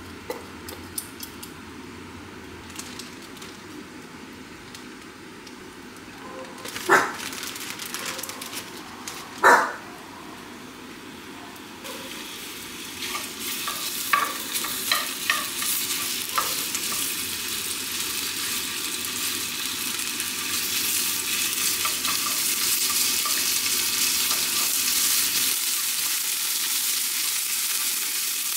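Two sharp knocks about two and a half seconds apart, then a sizzling hiss that starts about twelve seconds in, with a few pops, and grows steadily louder.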